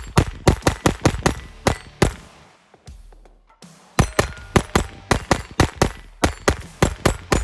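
Taurus TX22 Compact .22 LR pistol fired rapidly, unsuppressed, in two quick strings of about four shots a second, with a pause of about two seconds between them.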